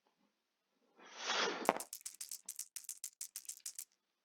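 Several game dice shaken, then rolled onto a table, clattering in a quick string of clicks for about two seconds as they tumble and settle.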